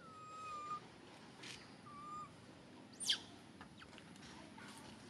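Young long-tailed macaque giving thin, whistle-like calls: two level whistles, one at the start and one about two seconds in, then a sharp high call sweeping steeply downward about three seconds in, the loudest sound.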